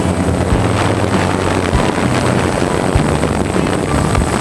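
DJI F550 hexacopter's motors and propellers whirring steadily in flight, heard from the camera on board, with irregular low thumps of wind on the microphone.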